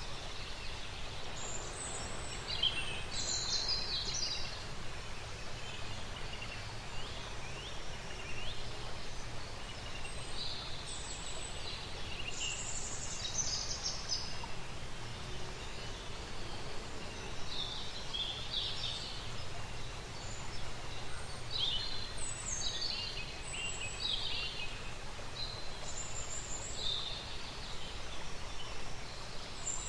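Countryside nature ambience: several birds chirping and calling on and off over a steady background noise.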